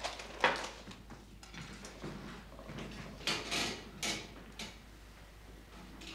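A few short clatters and rattles of metal instruments and needles handled in enamel medical trays. The sharpest comes about half a second in, and a cluster follows around three and a half seconds in.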